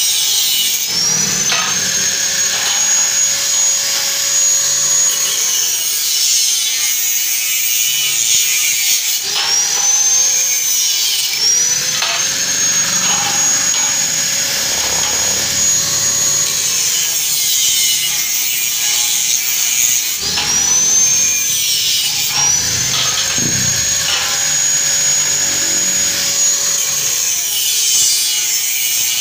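Angle grinder with an abrasive cut-off disc cutting through square hollow steel tubing, one cut after another. Its high whine sags as the disc bites into the steel and climbs back up when it is eased off, about three times.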